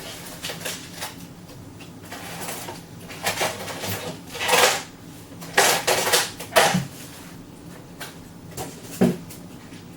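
Statue packaging being handled and opened: irregular scraping, rustling and knocking, louder in a few bursts past the middle, with a sharp knock near the end.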